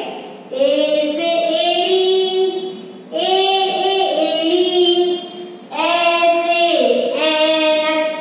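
A woman's voice singing the Hindi vowels and their example words as a sing-song recitation in about three long, drawn-out phrases with held notes.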